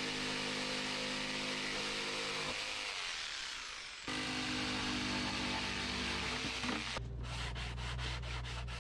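Jigsaw cutting through chipboard, its motor running steadily, winding down about two and a half seconds in and running again from about four seconds. From about seven seconds in, quick rubbing strokes, about five a second, of a hand block worked along the freshly cut edge.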